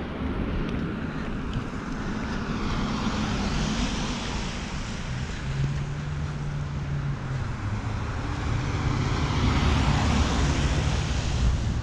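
Street traffic: cars passing on a wet, thawing road, the tyre hiss swelling a few seconds in and again near the end, with a steady engine hum in between.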